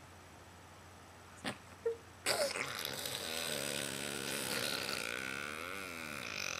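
A baby making a long, low, gravelly vocal sound that wavers in pitch, starting a little over two seconds in after a click and a short squeak.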